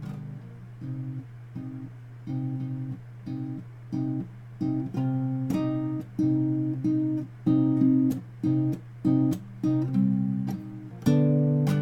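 Guitar played unaccompanied: short strummed chords in a steady rhythm, about two a second, growing louder through the passage.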